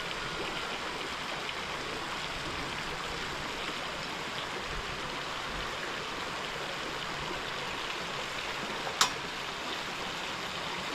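Steady rushing of a stream, with one sharp click about nine seconds in.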